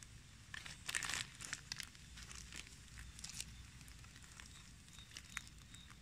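Clear plastic grafting strip crinkling and rustling as it is wrapped and tied around a mango graft, with a louder burst of crinkling about a second in.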